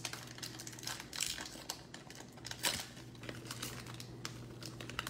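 Wrapper of a 2022 Bowman baseball retail card pack crinkling and crackling as it is torn open by hand, in a string of irregular crackles, the loudest about two and a half seconds in.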